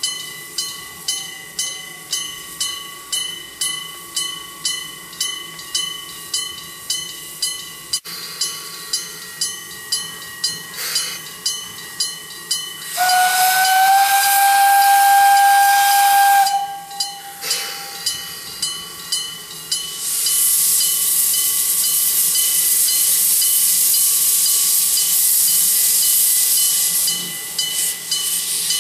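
A bell rings steadily about twice a second. About halfway through, the 1909 Porter steam locomotive's whistle blows one long note for about three and a half seconds, sliding up a little as it starts. Later comes a loud, steady steam hiss from its cylinder drain cocks.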